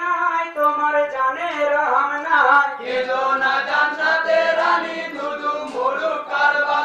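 Young men's voices chanting a marsiya, a mourning lament for the martyrs of Karbala, as a melodic chant with long held notes.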